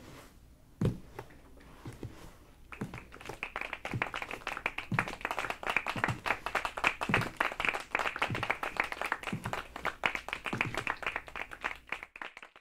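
A crowd applauding: dense, fast clapping that starts about three seconds in and stops abruptly just before the end, after a few faint scattered clicks, with a low thump now and then.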